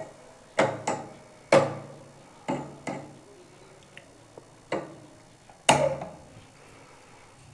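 A spoon knocking against the pan of boiling tea, about seven sharp knocks at irregular intervals, each leaving a short ring.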